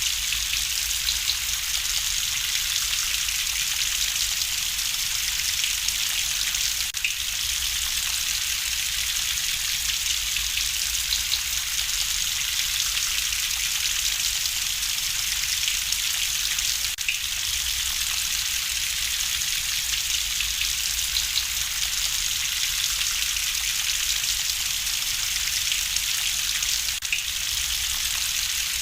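Steady rain, with light crackling from a wood fire in a fireplace. There is a brief dip in the sound about every ten seconds.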